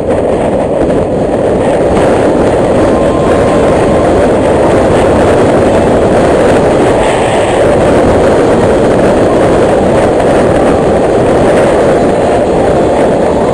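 Motorcycle riding at about 60 to 85 km/h: loud, steady wind rush over the mounted camera's microphone mixed with engine and road noise.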